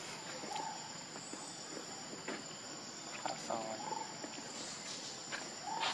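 Steady high-pitched drone of insects such as crickets, with a few short squeaky calls about half a second in, around three and a half seconds in and near the end.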